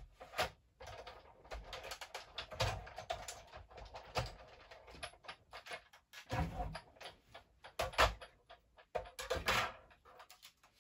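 Paper crafting handling noise: irregular light clicks, taps and rustles of card stock and thin metal cutting dies being moved and adjusted on a craft desk.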